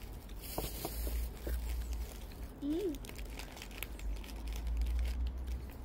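Crinkling and tearing of a small plastic snack wrapper being opened by hand. About three seconds in there is a brief vocal sound, and low wind rumble on the microphone runs under it.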